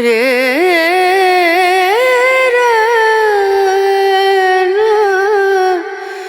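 A singer's voice in a Santali song holds one long phrase, wavering with vibrato and sliding between sustained notes. It breaks off near the end.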